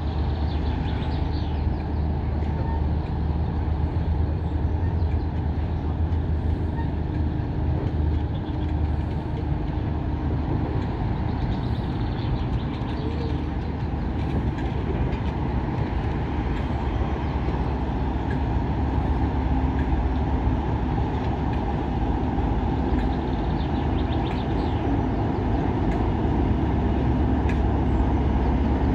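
Class 47 diesel locomotive's Sulzer 12-cylinder engine running steadily as the loco draws slowly up alongside the platform, getting a little louder near the end.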